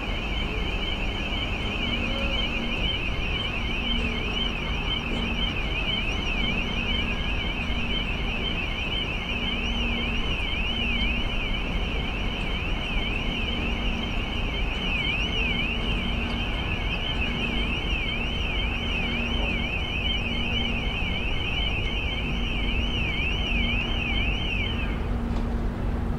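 Electronic alarm warbling rapidly and without a break, then cutting off suddenly near the end, over a steady low wind rumble. A low tone beeps on and off roughly once a second throughout.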